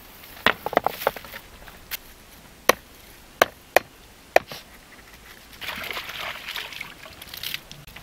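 Knife chopping lemongrass stalks on a wooden chopping board: about eight sharp single chops at uneven intervals. Near the end comes about two seconds of softer rustling.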